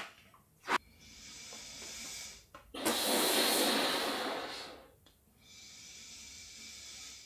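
A woman blowing up a latex balloon by mouth: three long breaths blown into it, each lasting about two seconds, with quick breaths in between, and a brief sharp sound about a second in.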